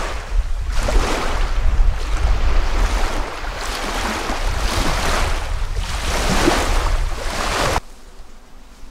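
Small wind-driven waves lapping and washing onto a sandy lake shore, swelling and falling every second or two, over wind rumbling on the microphone. The sound cuts off suddenly near the end.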